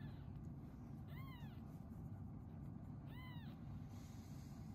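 Newborn Persian kittens mewing: two thin, high-pitched cries, each rising then falling in pitch and lasting about half a second, a couple of seconds apart.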